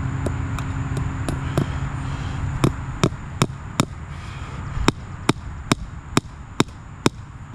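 Hammer blows driving fence staples to fix the wire to a post, in quick runs of about two or three sharp strikes a second, louder from about two and a half seconds in. A steady low machine hum runs underneath and stops about two and a half seconds in.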